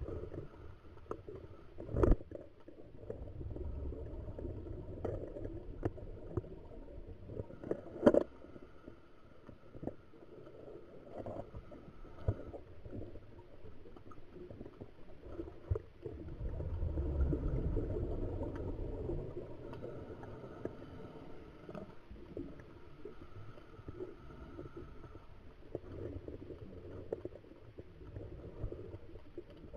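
Muffled underwater sound of a scuba diver's regulator breathing and exhaled bubbles, with a low bubbling rumble that swells about halfway through. Two sharp knocks sound, about two and eight seconds in.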